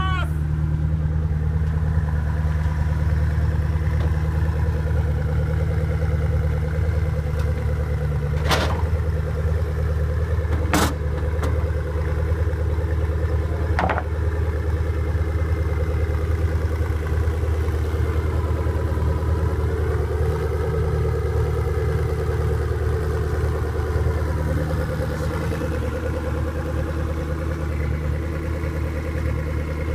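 Koenigsegg One:1's twin-turbo V8 idling steadily, with three sharp clicks about a third of the way through.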